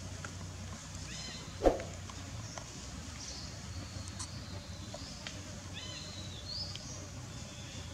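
Outdoor ambience with a steady low hum, a single sharp knock about a second and a half in, and a few short high chirps later on.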